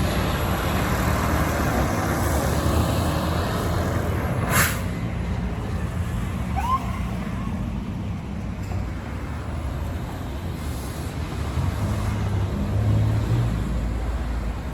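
Fire truck's diesel engine running with a steady low rumble, with a brief sharp hiss about four and a half seconds in.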